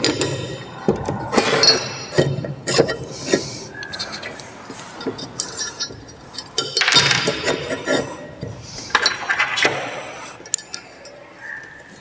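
Steel parts being fitted by hand: a shaft and roller pushed into a welded steel stand. Irregular metal clinks and knocks, some with a short high ring, and two longer bursts of metal scraping in the second half.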